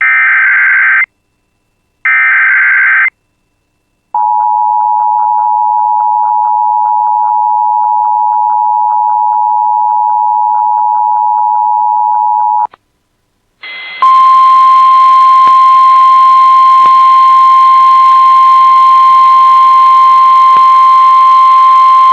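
Emergency Alert System tones: the last two of three short, warbling digital SAME header bursts in the first few seconds, then about eight seconds of the steady two-tone EAS attention signal. After a brief gap comes a steady single 1050 Hz NOAA Weather Radio alert tone over a hiss, which cuts off near the end.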